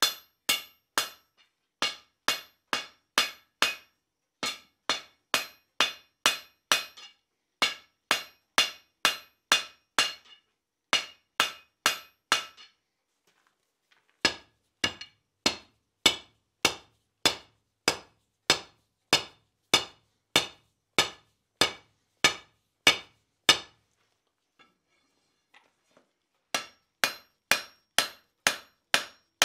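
A hand hammer strikes red-hot steel on a steel anvil, about two blows a second, each with a bright ring. The blows come in three runs, with two short breaks. This is hammering the scarf on the end of a bar ready for a forge weld.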